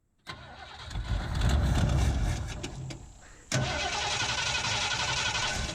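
Starter cranking the 1978 Ford F100's 302 V8, in two attempts: one starting just after the beginning, then a sudden fresh crank about three and a half seconds in with a steady whine. The engine, which has not run in six months, does not keep running, so it needs priming again.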